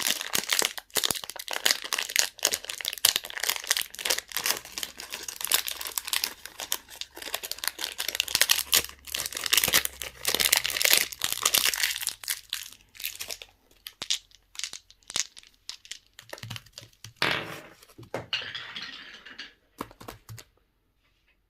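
Crinkling and tearing of candy wrappers being opened by hand, dense at first, then thinning to scattered crinkles that stop near the end.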